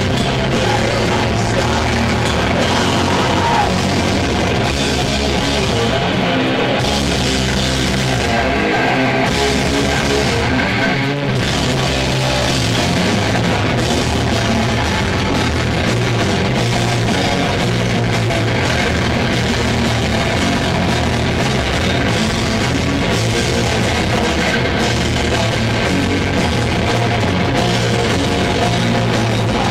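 A heavy metal band playing loud live: heavily distorted Les Paul-style electric guitar riffing over bass and a pounding drum kit.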